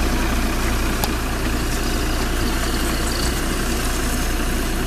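A city bus engine running steadily, heard from inside the bus as an even low hum with no revving. There is one faint click about a second in.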